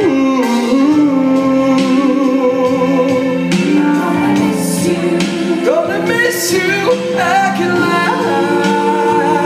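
Several voices singing a song together over backing music, amplified through a PA.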